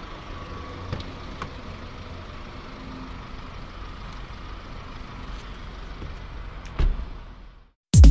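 Low, steady background room rumble with a few faint clicks and a short knock about seven seconds in. It drops to silence just before the end, when loud electronic music cuts in.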